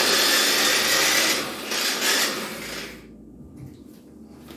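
Small electric food chopper running in two pulses, grinding cilantro and garlic, then stopping about three seconds in.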